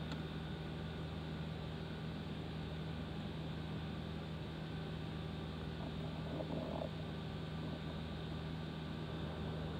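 Steady low hum of several fixed tones over a faint even hiss, with a brief faint sound about six and a half seconds in.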